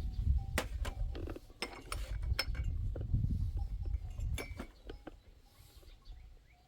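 A run of irregular light metallic clinks and knocks, about eight in four and a half seconds, over a low rumble; both fade away near the end.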